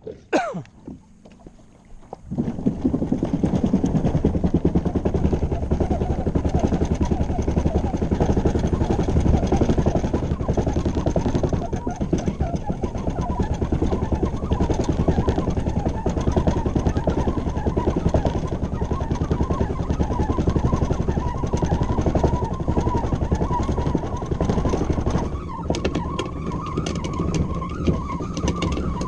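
Continuous rough rumbling and scraping of the FeelFree Lure 13.5 kayak being hauled out over the boat ramp. It starts about two seconds in and turns brighter, with rattling clicks, near the end.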